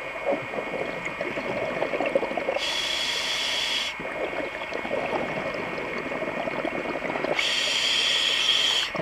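Scuba diver breathing through a regulator underwater: two breaths, each a long bubbly, crackling exhalation followed by a steady hiss of inhalation lasting about a second and a half.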